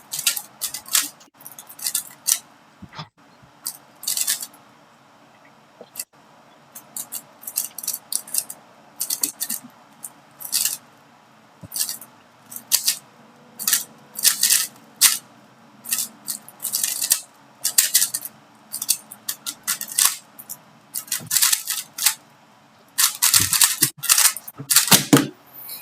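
3x3 Rubik's Cube being turned fast during a speedsolve: rapid plastic clicking and clacking of the layers in quick runs, broken by short pauses.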